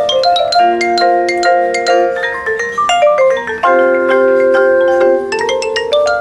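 Mallet percussion duet: a Yamaha marimba and a vibraphone played together. Quick struck notes run over held chords that change every second or two.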